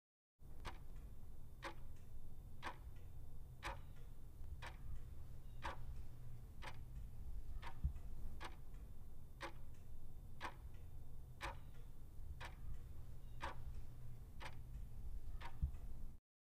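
Clock ticking about once a second for a quiz countdown timer, over a steady low hum. It starts suddenly about half a second in and cuts off abruptly near the end.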